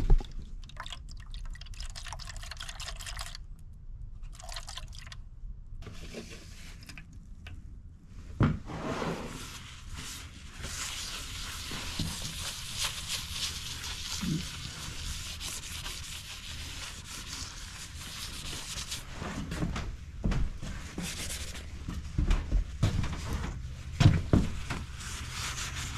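Oily liquid dripping and sloshing in a plastic cup, then a rag rubbing steadily back and forth over an ATV's faded plastic fender, with a few knocks along the way.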